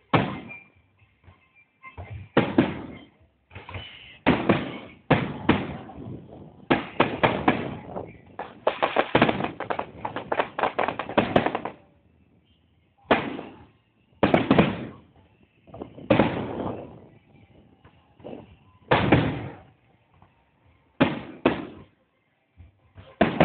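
Fireworks going off: a series of separate booming bursts, each dying away with an echo. In the middle comes a dense stretch of rapid bangs and crackle, lasting about five seconds.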